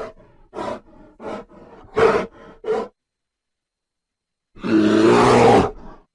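Brown bear vocalizing: a run of short grunts over the first three seconds, then a gap and one loud roar lasting a little over a second.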